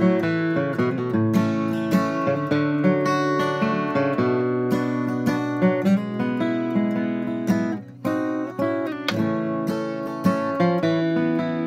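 Steel-string dreadnought acoustic guitar flatpicked: a steady stream of picked notes mixed with strums, with a brief break about two-thirds of the way through.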